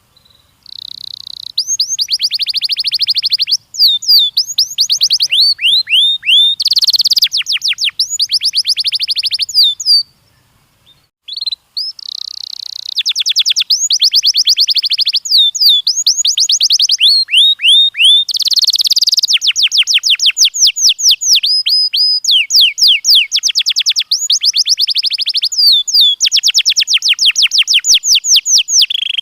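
Domestic canary singing: long phrases of rapid trills and fast repeated chirps, with a short pause partway through.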